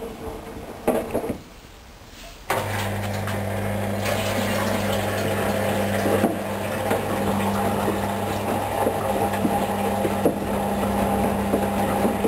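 Hoover Dynamic Wash 10+ washing machine: a couple of clicks, then about two and a half seconds in a steady mains hum switches on suddenly with water rushing, typical of the inlet valve opening to fill the drum.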